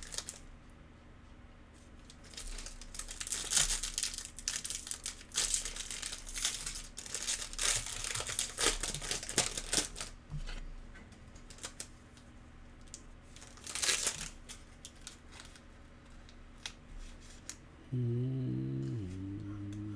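Foil wrapper of a trading-card pack crinkling and tearing as it is pulled open by hand, in bursts of rustling over several seconds, with another crinkle a little later. Near the end a voice hums briefly.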